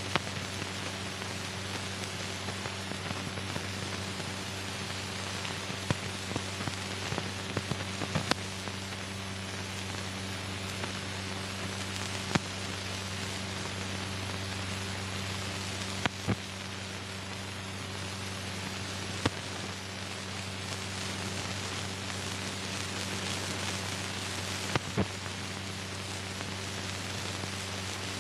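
Surface noise of an old film soundtrack with no speech: a steady hiss over a low hum, broken by scattered clicks and pops.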